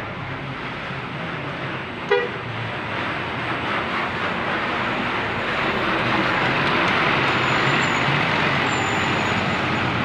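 Jetbus 3+ tourist coach driving slowly past close by, its diesel engine running with a steady low hum that grows louder about halfway through as it passes. A short sharp blip sounds about two seconds in.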